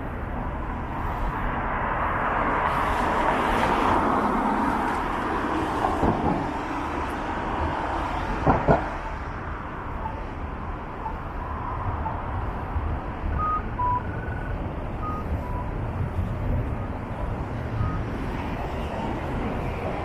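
City street traffic noise with one vehicle passing, swelling and fading over a few seconds. Two sharp knocks come about eight and a half seconds in, and a few short high beeps follow in the second half.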